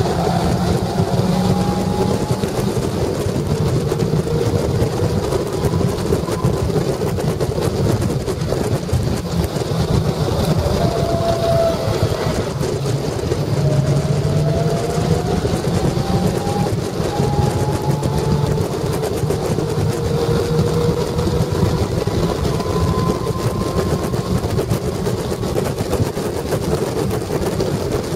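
Caterham race car's Ford Sigma 1.6 engine, heard from the cockpit, its revs climbing in long rising sweeps with a drop in pitch at each gear change, under heavy wind and road noise.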